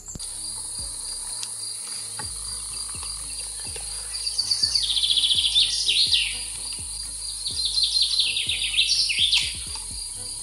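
Insects chirring steadily at a high pitch in a summer meadow, while a songbird sings two loud phrases of quick, falling notes, about four and eight seconds in.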